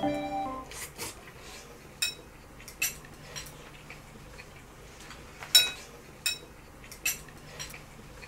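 Cutlery clinking and scraping against a dish while scooping up microwaved frozen chicken rice: about ten scattered sharp clicks over several seconds.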